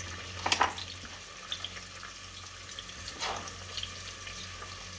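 Faint kitchen noise: a soft steady hiss, either water or food cooking, over a low steady hum, with a sharp scrape or clatter of a utensil about half a second in and a softer one a little after three seconds.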